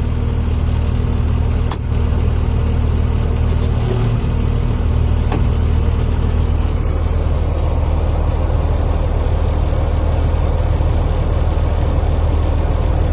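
Caterpillar 535B skidder's diesel engine running steadily, with two short clicks about two and five seconds in.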